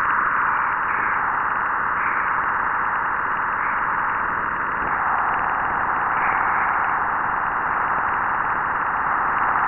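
Juno spacecraft Waves instrument electric-field data converted to sound. A steady band of rushing noise comes in sharply as the recording crosses Jupiter's magnetopause: trapped continuum radiation inside Jupiter's magnetosphere. It has a few faint brief swells above it, and its lower edge sinks slightly about halfway through.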